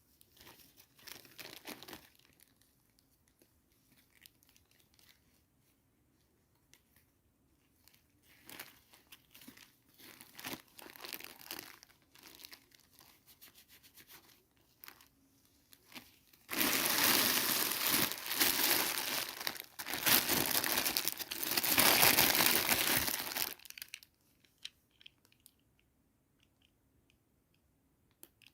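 Toy packaging being handled and torn open: scattered soft crinkles and rustles, then a loud stretch of tearing lasting several seconds past the middle.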